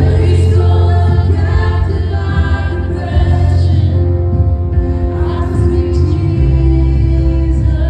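Live contemporary worship music: women singing over electric guitar, keyboard and a heavy bass line, played through a PA system.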